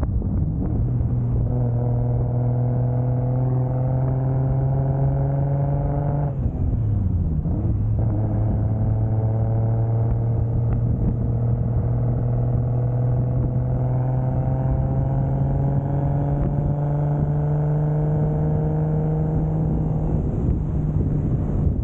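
1995 Toyota Soarer's single-turbo 2JZ straight-six pulling through the gears under moderate throttle. The engine note climbs slowly, drops for a gear change about six seconds in, climbs steadily again for a long stretch, and eases off near the end.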